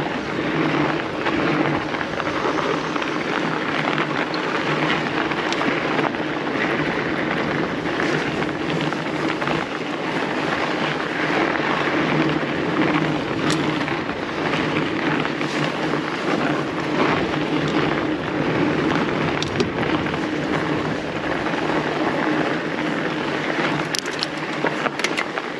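Fat-bike tyres rolling steadily over packed snow on a downhill run, with wind rushing over the camera microphone. A few sharp clicks come near the end.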